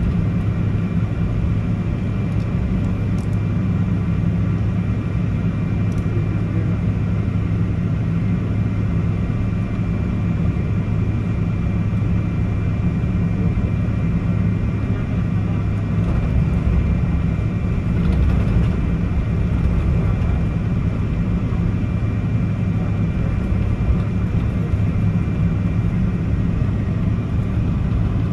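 Steady cabin rumble of a Boeing 777-200ER taxiing after landing, its engines at idle, with a faint steady high whine above the low hum.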